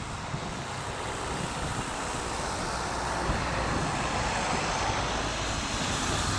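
Distant engine rumble, growing gradually louder, over a rough outdoor noise.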